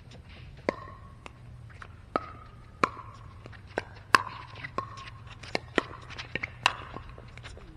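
Pickleball play: sharp, irregular pops of paddles hitting the hard plastic ball and the ball bouncing on the court, about a dozen in all, several with a short hollow ring after the hit.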